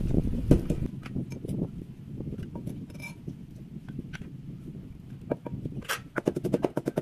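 Pestle pounding chilies in a mortar: scattered knocks at first, then a quick run of regular strikes, about six a second, near the end.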